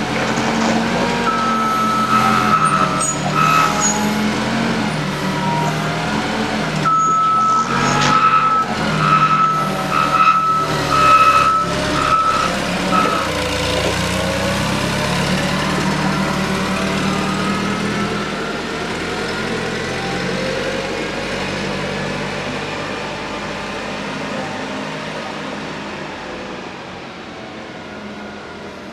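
Clark forklift's engine running as it manoeuvres, with its reversing alarm beeping in a series of pulses during the first dozen seconds. The engine sound then fades as the forklift drives away.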